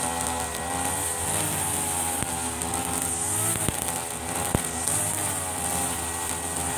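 Two-stroke brush cutter engines running under load while cutting grass, the engine pitch rising and falling, with a few sharp ticks from the cutting head.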